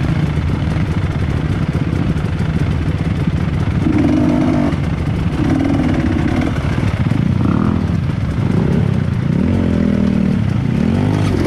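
Trail motorcycle engine running under throttle, the revs going up and down: held higher twice around the middle, then rising and falling several times near the end.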